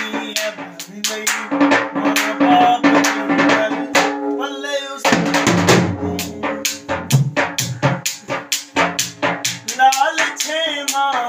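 Dhol, the Punjabi double-headed barrel drum, beaten with sticks in a quick, steady rhythm of about three to four strokes a second, over a held melodic line.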